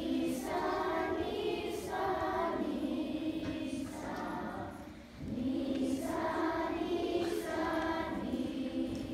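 A children's choir singing together in two phrases, with a short break about five seconds in before the second phrase starts.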